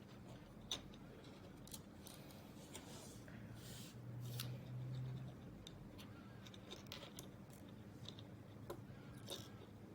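Small plastic kit parts being handled and fitted together, giving scattered light clicks and snips. A brief low hum about four seconds in.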